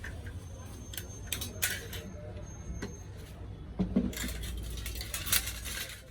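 A few sharp clinks and taps of small hard objects being handled, over a steady low hum.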